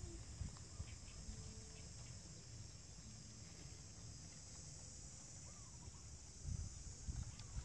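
Faint steady high-pitched chirring of insects, with a low rumble that swells near the end.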